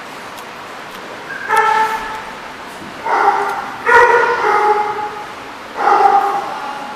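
A dog barking in four drawn-out, even-pitched calls, the first about a second and a half in and the last near the end.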